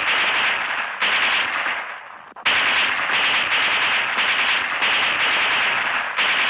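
Rapid automatic gunfire sound effect in long, unbroken bursts, each fading slightly before a new burst starts sharply, about a second in and again about two and a half seconds in.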